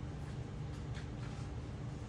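Steady low hum of room and recording noise, with a few faint, short rustles about a second in.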